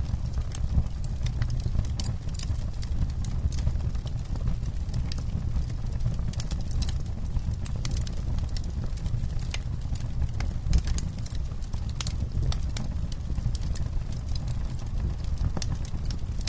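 Campfire crackling: irregular sharp pops and snaps from the burning wood over a steady low rumble.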